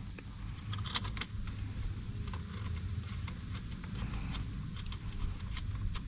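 Scattered small metallic clicks and light rattling as bolts are handled and threaded in by hand on a car's steering column, over a steady low hum.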